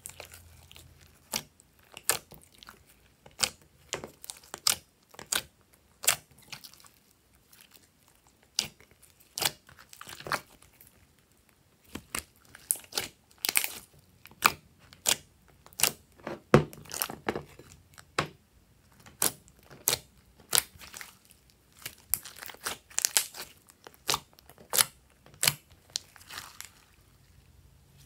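Hands kneading and pressing glossy slime in a glass dish: irregular sharp, sticky clicks and pops, about one or two a second, some much louder than others.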